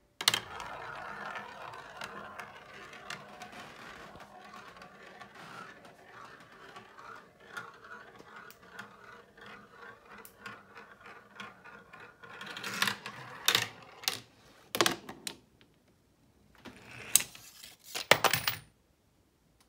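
A marble rolling through a plastic marble-run funnel and track, a steady rattling roll for about twelve seconds. Then several sharp knocks as the next pieces of the chain are struck, and near the end a quick cluster of clinks as a quarter drops from the lever.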